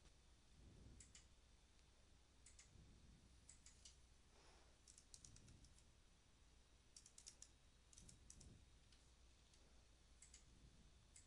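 Very faint computer keyboard keystrokes in short runs and scattered mouse clicks, over a low steady hum.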